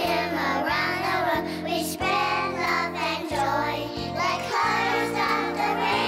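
Upbeat children's show theme music with children singing over a bouncy backing track, its bass stepping through notes on a steady beat.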